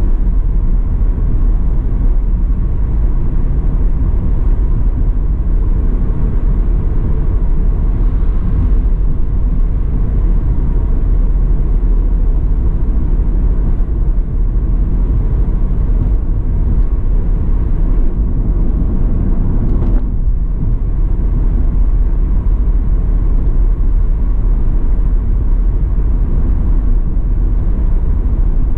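Steady low road rumble of a car cruising at motorway speed, heard from inside the cabin: tyre and engine noise.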